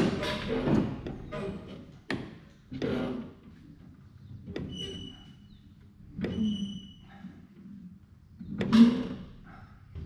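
Clunks and clanks of an Oliver 720 small square baler's knotter and needle mechanism being cycled through by hand: about half a dozen separate metal knocks a second or two apart, the loudest at the start and near the end, two of them followed by a short metallic ring.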